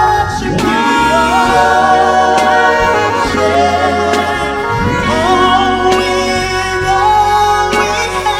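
Gospel worship music: several voices singing sustained, gliding melodic lines over a steady low bass accompaniment.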